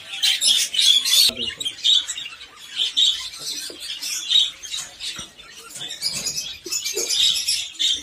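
A flock of caged budgerigars chirping and chattering constantly in quick, high chirps, with a few small knocks and scrapes as a clay pot nest is handled inside a wire cage.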